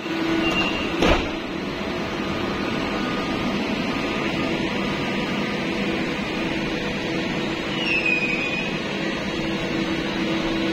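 Electric train standing or moving slowly beside the platform, giving a steady humming drone. A sharp knock comes about a second in, and a short high squeal about eight seconds in.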